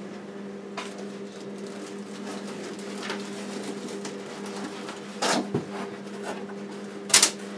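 A few short rustles and knocks as a new two-slice toaster and its box and packaging are handled, the loudest two about five and seven seconds in, over a steady low electrical hum.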